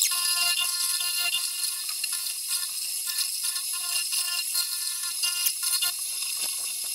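Milling machine spindle driving a solid carbide cutter across the rusty sealing face of a turbocharger housing: a steady high whine made of several held tones, with irregular clicking chatter from the cut.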